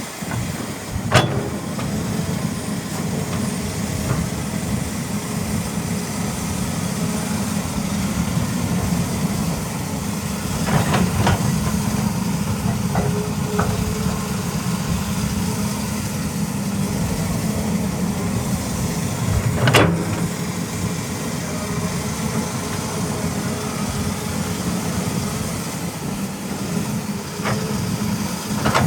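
Diesel engine of a CAT 320E hydraulic excavator running steadily under work, with occasional sharp metal clanks from the machine working. The loudest clank comes about twenty seconds in.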